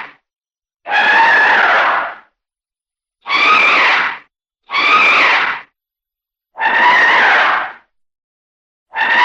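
Elephant trumpeting from a stock sound-effect recording: a series of separate calls of about a second each, each rising and falling in pitch, with short silent gaps between them.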